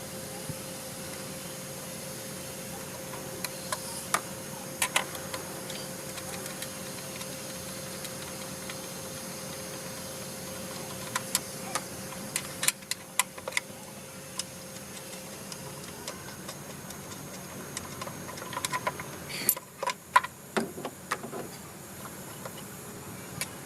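Scattered, irregular metallic clicks and clinks, like hand tools and parts being handled on an engine, over a steady background hum with a faint whine that fades out about two thirds of the way through. The clicks come in clusters, the busiest near the end.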